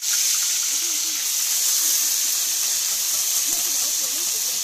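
Onion, ginger and garlic paste frying in hot oil in a large kadai: a loud, steady sizzle that starts abruptly.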